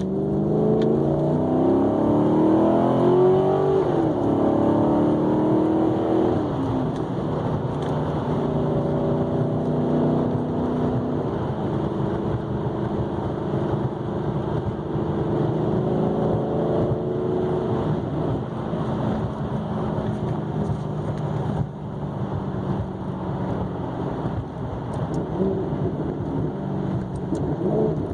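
2009 Maserati GranTurismo S's 4.7-litre V8 and exhaust accelerating: the engine note climbs for about four seconds, drops at a gear change, drops again a couple of seconds later, then settles into steady cruising with small rises and falls.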